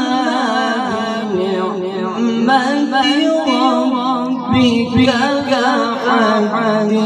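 A man reciting the Quran in melodic tajweed style: one unaccompanied voice drawing out long notes with wavering ornaments.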